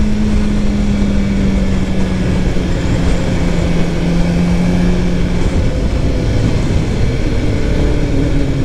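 Several motorcycle engines running together in a dense, steady rumble. The main engine note drifts slowly lower, and another engine note comes in near the end.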